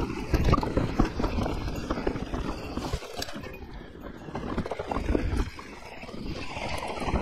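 Santa Cruz Nomad mountain bike riding down a rocky trail: a dense clatter of tyres on stones and the bike rattling, over a low rumble on the camera microphone. It eases off briefly twice.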